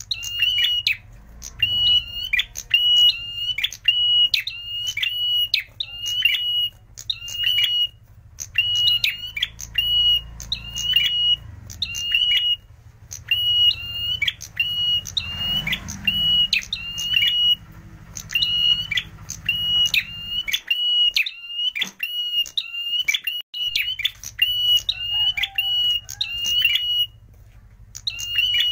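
Prenjak merah (a tailorbird) giving its loud, shrill, piercing chirps in rapid runs of about two a second, with brief pauses between runs: the full-song calling that is used as a lure call.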